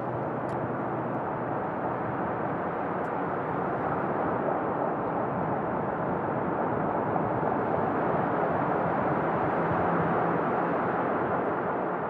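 A steady rushing noise, like distant aircraft or wind, growing slightly louder toward the end, with a couple of faint ticks.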